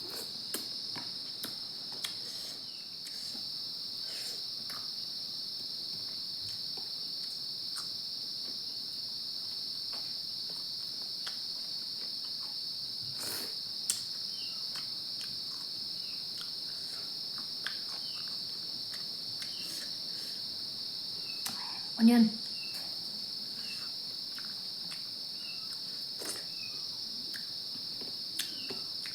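Steady, high-pitched chorus of crickets that never lets up, with scattered light clicks and taps over it.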